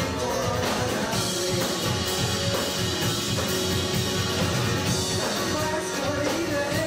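A rock band playing, with drum kit and guitar.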